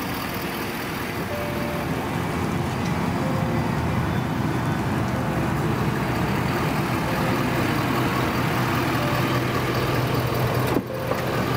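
Pickup truck engine running at idle: a steady low hum that stays level, with a brief break near the end.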